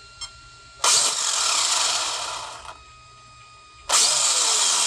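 Castle Creations Copperhead 10 sensored brushless motor and ESC in an RC car, punched twice from the transmitter with the wheels off the ground. Each time the motor and drivetrain spin up at once with a loud whine, then wind down, the second time falling in pitch. The instant spin-up means the combo shows no throttle lag.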